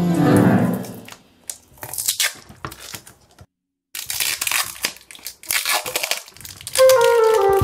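Clear plastic wrap crinkling and crackling in irregular bursts as it is peeled off a plastic cola bottle, with a brief dead gap in the middle. Background music fades out at the start and comes back near the end.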